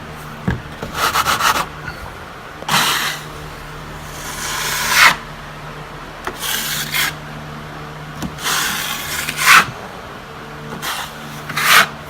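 Steel drywall trowel spreading joint compound over a wall patch: about six separate scraping strokes, several growing louder and ending in a sharp rasp.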